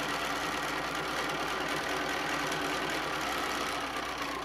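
Bernina sewing machine running steadily at speed, top-stitching a line across folded cotton fabric.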